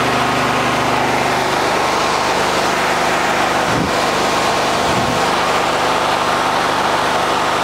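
Small portable petrol generator engine running at a steady speed, powering a soft-serve ice cream machine.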